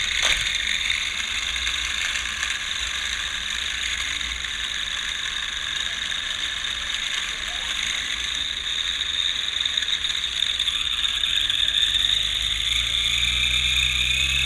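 Small toy quadcopter's micro electric motors and plastic propellers spinning with a steady high whine, the pitch rising near the end as the motors speed up.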